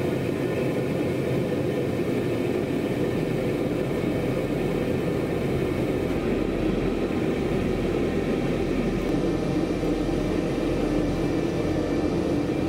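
Small forge burning with a steady, even rushing noise while a blade heats in the fire.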